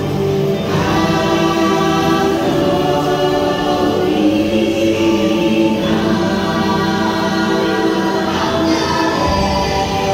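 The ride's soundtrack: a choir singing long held chords over music, the chords shifting every few seconds.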